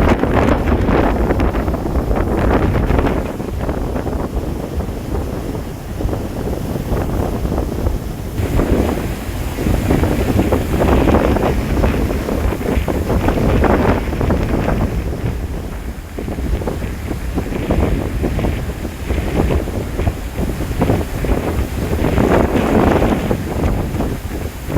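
Strong cyclone wind blasting the microphone, a loud rumbling rush that swells and eases in gusts every few seconds.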